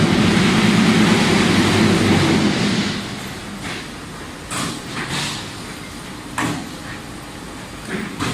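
Concrete block making machine running: a loud, steady vibrating hum for about three seconds, then quieter running broken by several short hisses.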